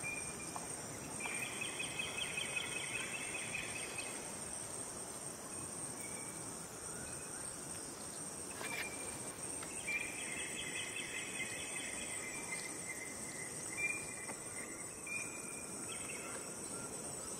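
Insects calling: a steady high-pitched whine, joined by a louder pulsing trill from about a second in until about four seconds, and again from about ten seconds in until about thirteen.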